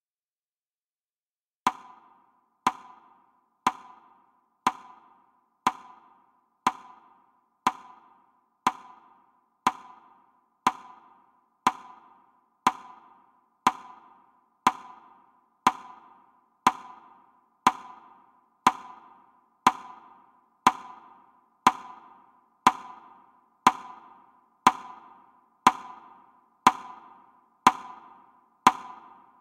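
Clock ticking steadily once a second, each a single sharp tick with a short ring, starting after a couple of seconds of silence; it counts off the seconds of a broadcast minute of silence.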